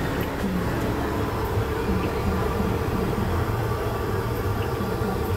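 Battered tempe deep-frying in a wide wok over a gas burner: a steady low rumble from the burner under the even sizzle of the oil.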